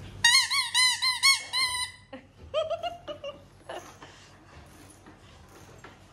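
Toy sound-maker on a child's ride-on cycle squeaking: a quick, even run of about seven high squeaks, each rising and falling, lasting under two seconds. A few fainter, lower squeaks follow.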